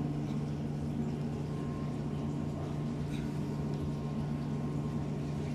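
Pump of a laboratory open-channel flume running: a steady low hum over a constant hiss.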